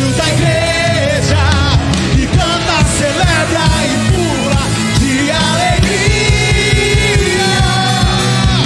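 A drum kit with Sabian cymbals played along with a Brazilian worship song with sung vocals, drum strokes all the way through. The singer holds one long note about six seconds in.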